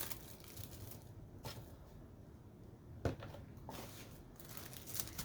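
Faint rustling and a few soft clicks of a cardboard box and its packaging being handled and opened.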